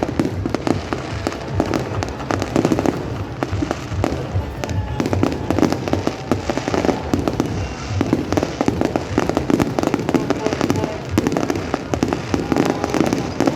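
Fireworks display going off continuously: a dense, unbroken stream of bangs and crackling.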